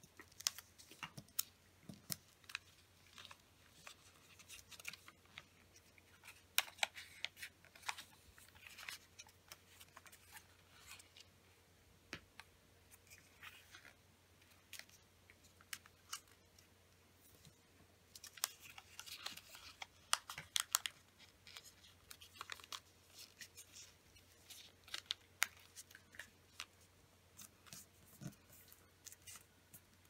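A 15 cm square sheet of origami paper being folded and creased by hand, pressed flat against a table: crisp rustles and sharp crackles of the paper in scattered bursts, busiest about a quarter of the way in and again a little past the middle.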